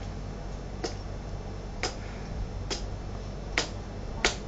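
A series of sharp clicks, five in all, about one a second and not quite evenly spaced, over a low steady hum.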